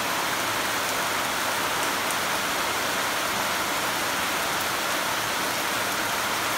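Heavy monsoon rain pouring down as a steady, even hiss.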